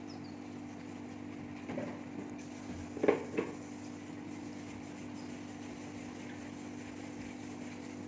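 A steady low machine hum, as from a motor or fan, with a few short knocks: one a little under two seconds in, then two louder ones close together about three seconds in.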